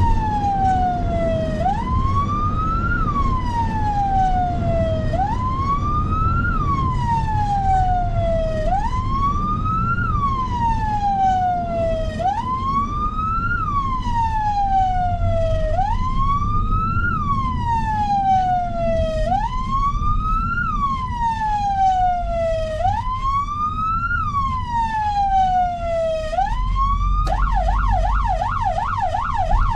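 Emergency vehicle's electronic siren on a slow wail, rising and falling in pitch about every three and a half seconds. Near the end it switches to a fast yelp of about four cycles a second. Under it runs a low road-vehicle rumble.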